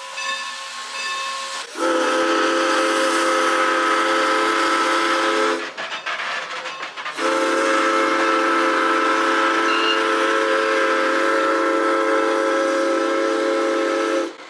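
Steam locomotive's chime whistle on the Strasburg Rail Road, sounding two long blasts of several notes at once: the first about four seconds long, the second about seven, with a short break between. Two long blasts is the railroad signal to proceed, given as the train pulls out. Before the first blast there is a quieter steady hiss of steam.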